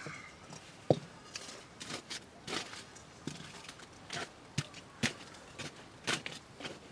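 Open wood fire being poked and raked with a stick: an uneven string of sharp knocks, scrapes and crackles, the loudest knock about a second in.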